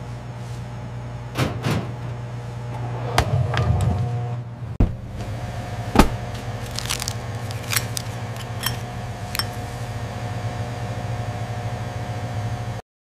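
Steady low hum of laboratory equipment with a faint held tone. Over it come several sharp clicks and knocks from a glass jar and its metal lid being handled on a steel bench, the loudest about six seconds in. The sound cuts off abruptly shortly before the end.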